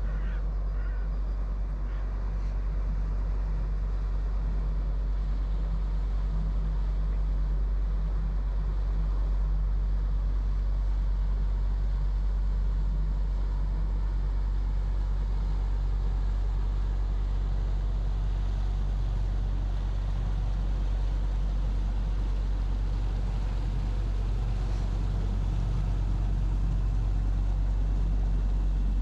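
Engine of a large motor boat passing on the river, a steady low drone.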